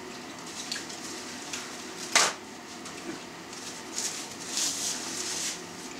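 A paper towel rustling as hands are wiped with it, with a single sharp click about two seconds in.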